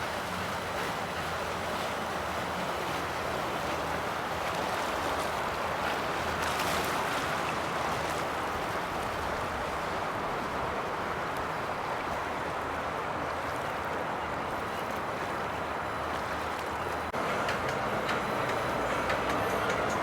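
Boat engines running steadily under a constant wash of water and wind noise, with a low engine hum beneath; the level steps up slightly near the end.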